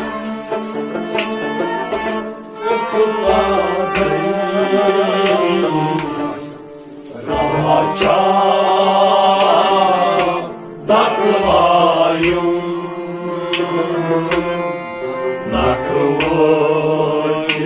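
Men singing a Kashmiri Sufi devotional song together to a bowed string instrument and harmonium, with drum strokes underneath. The singing breaks off briefly twice, about six and a half and ten and a half seconds in.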